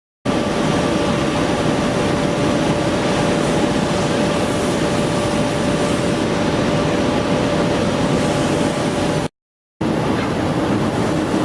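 Heavy industrial machinery running steadily: a loud, even mechanical drone with a steady whine over it. It cuts off abruptly about nine seconds in and comes back half a second later.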